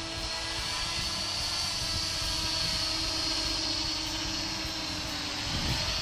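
Small FPV drone's electric motors and propellers whining steadily as it comes in to land, the pitch dropping near the end as it settles in the grass.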